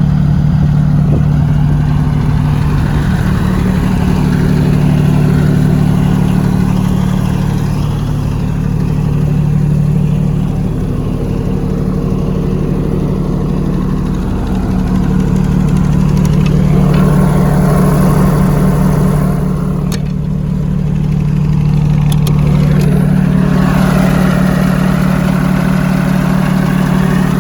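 SDMO 30 kVA diesel generator running steadily, a continuous engine drone.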